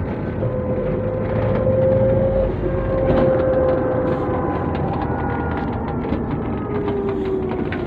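Cabin noise of a Nissan NV350 Premium van driving, heard from the rear seats: a steady road and running drone with a faint whine that slides down in pitch near the end, and light rattles. It is a test drive to check whether a drone ('hugong') is still there after repair.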